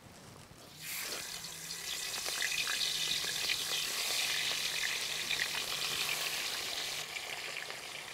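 Fish pieces frying in hot oil in an iron wok, sizzling with scattered crackles and pops. The sizzle starts suddenly about a second in and holds steady.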